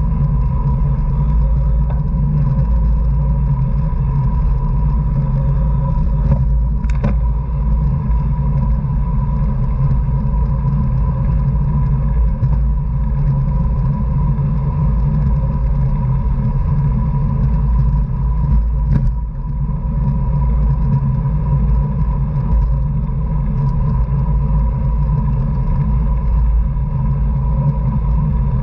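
Steady low rumble of wind and road noise on a camera riding on a racing bicycle at speed, with a thin steady tone above it and a couple of brief clicks.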